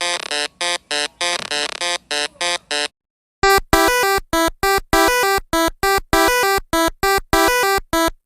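Electronic synthesizer music of quick, evenly spaced staccato notes, about four a second. It breaks off about three seconds in and picks up again half a second later with a brighter tone.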